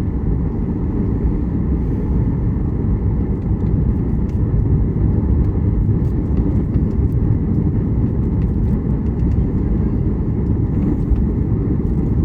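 Cabin noise inside a Boeing 737 MAX 8: a steady, loud low rumble of the engines and rushing air, with faint scattered ticks and rattles.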